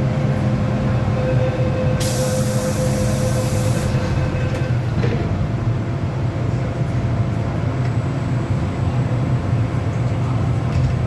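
An MTR M-Train electric multiple unit running with a steady low rumble and faint steady tones. About two seconds in, a hiss starts suddenly and cuts off after about two seconds.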